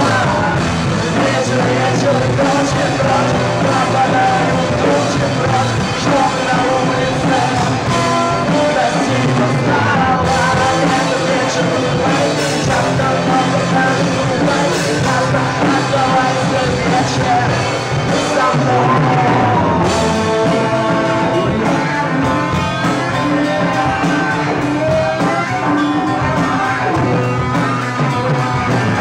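Live rock band playing a slow ballad, with a singer's voice carried over the band.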